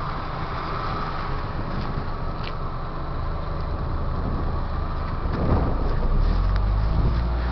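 A car engine running at idle close by, its low steady hum growing louder in the second half as the exhaust pipe comes near, with a rustling haze over it as the camera is carried through grass.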